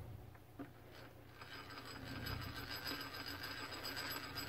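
Faint steady mechanical hum with a single light click about half a second in, as a milling machine table is traversed to sweep a dial test indicator across the workpiece; the hum grows a little louder after the first second.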